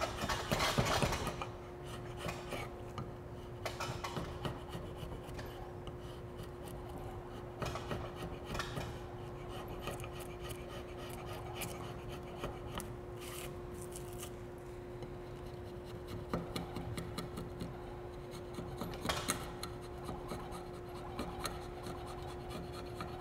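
Drawknife shaving a wooden axe handle clamped in a vise: repeated scraping strokes peeling curls off the handle's top end, the first few the loudest. The wood is being pared down so the handle fits the axe head's eye and the head sits straight.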